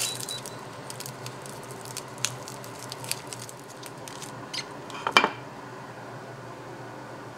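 Light crinkles and clicks of aluminium foil being peeled off the fins and tails of salt-grilled sea bream, with a louder clatter of a tray or dish being handled about five seconds in.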